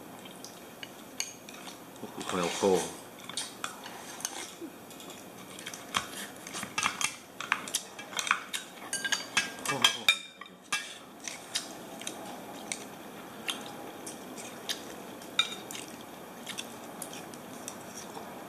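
Table knife and spoon clinking and scraping against a large grilled clam's shell and ceramic bowls as the clam meat is cut in its shell: many short irregular clicks, thickest in the middle stretch.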